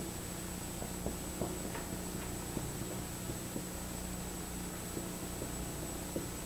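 Steady electrical mains hum with room tone, broken by faint scattered ticks and taps, and a sharper click near the end.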